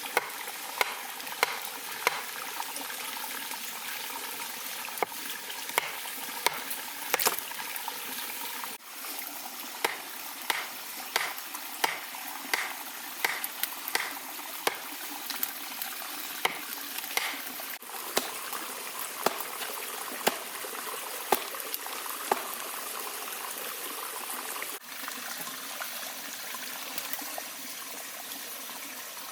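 Food cooking over a wood fire: a steady bubbling, sizzling hiss broken by frequent sharp pops and crackles at irregular intervals.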